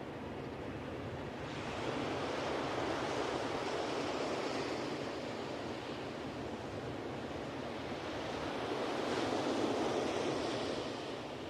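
Ocean surf washing onto a beach, a steady rushing noise that swells twice: a wave surges in about a second and a half in, and a second one builds to a peak near the end before falling back.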